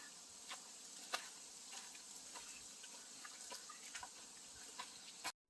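Faint footsteps on a hiking trail, a light tick roughly every 0.6 seconds, over a steady hiss. The sound cuts out abruptly near the end.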